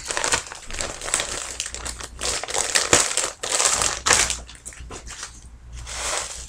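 Plastic packaging crinkling and rustling in irregular bursts as a wig is pulled out of its bag, thinning out after about four and a half seconds.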